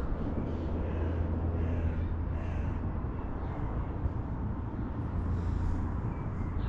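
Outdoor ambience: a steady low rumble, with faint short bird calls repeating over it about once a second.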